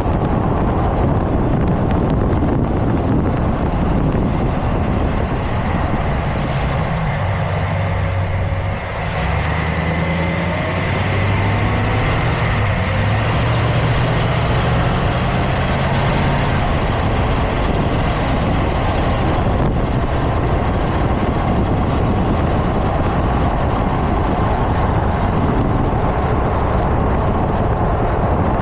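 Steady noise of a moving vehicle with wind on the microphone. A low hum rises above it for several seconds about a quarter of the way in.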